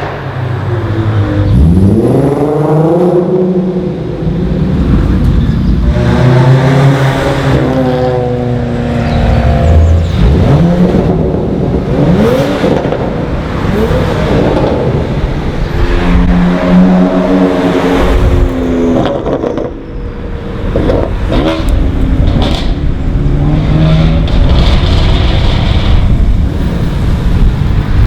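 Several tuned and modified cars driving past one after another, each engine revving up hard through the gears and then fading, with a few sharp exhaust pops in between.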